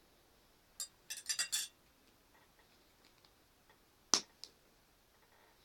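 Light clinks of a spoon against a container while borax water is added to slime: a quick cluster of clinks about a second in, then one sharp clink around four seconds in.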